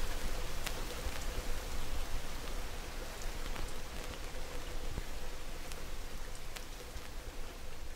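Steady rain sound: an even hiss with scattered small drop-like clicks and a faint steady tone underneath, slowly fading out.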